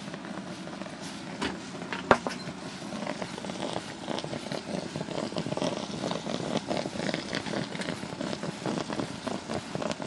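Distilled water boiling hard inside the electrically heated EKitty cell at about 780–800 W: a dense crackling, bubbling rumble with steam escaping. One sharp click comes about two seconds in.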